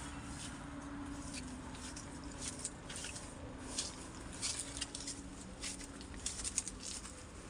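Irregular light crunching and rustling, typical of footsteps through dry grass and weeds, over a steady low rumble.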